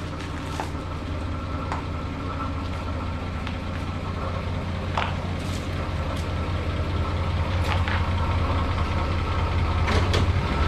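A 1963 Chevrolet Impala's engine running steadily at low speed, a low drone that grows a little louder toward the end, with a few faint clicks over it.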